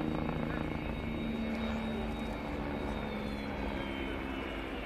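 Agusta A109 twin-turbine helicopter flying overhead: its rotor beats steadily over a continuous engine and gearbox whine, with a high thin whistle that drifts slightly lower in pitch in the second half.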